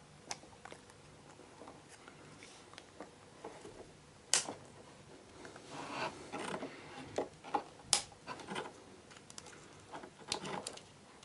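Plastic retention ring being pushed onto an Antec Kühler H2O 920 pump block with a screwdriver: scattered plastic clicks, scrapes and handling rustle as the ring is forced through its grooves, with sharp clicks about four and eight seconds in.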